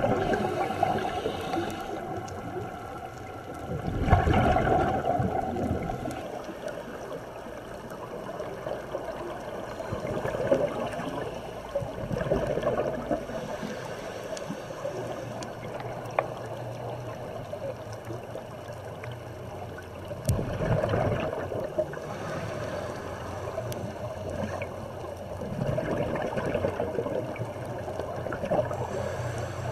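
Scuba diver breathing through a regulator, heard underwater: exhaled air bubbles out in gurgling bursts about every five or six seconds, with quieter stretches between breaths.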